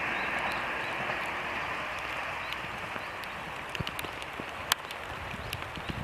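Rain falling, with scattered drops ticking close by, over the noise of a passing diesel train that fades away as it moves off.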